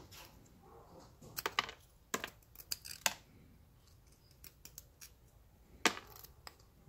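Razor blade scraping hard carbon deposits on a direct-injection engine valve: an irregular run of short, sharp scratches and clicks. The carbon is still rock hard and barely comes off, not softened by its Coca-Cola soak.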